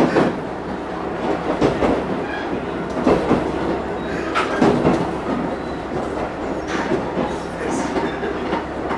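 Diesel railcar running on jointed track, heard from beside the driving cab: a steady rolling rumble with a wheel clack over a rail joint about every second and a half, as the train draws in to stop at a station.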